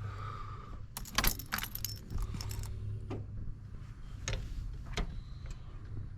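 Keys jangling on a key ring in a car's ignition, a burst of jingling followed by a few single clicks, over a steady low hum.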